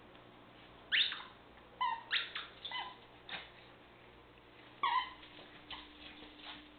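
Squeaker in a plush dog toy squeaking as a terrier chews and shakes it: short, sharp squeaks coming in a few quick bursts.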